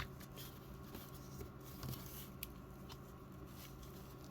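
Faint handling of a plastic action figure being posed: one sharp click at the start, then a few light ticks and rustles, over a steady low hum.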